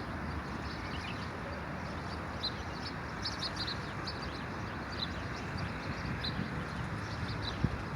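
Birds chirping: short, high chirps scattered irregularly, a few each second at times, over a steady low background rush.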